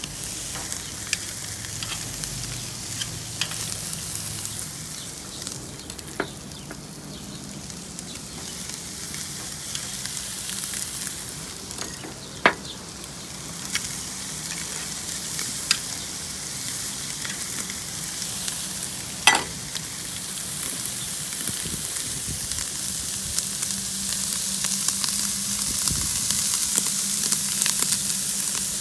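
Beef steaks sizzling on a hot charcoal grill grate as they are laid on, with scattered sharp crackles and a couple of louder snaps. The sizzle grows louder near the end as more meat goes down.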